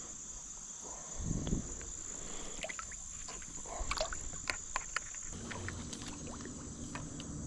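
Creek water sloshing and splashing: a low slosh about a second in, then a run of small splashes and drips, over the steady high chirring of crickets.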